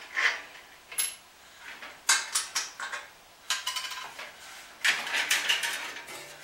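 Metal parts of a 14-inch wood bandsaw clinking and rattling in about five short bursts as the freed saw blade and fittings are handled by hand.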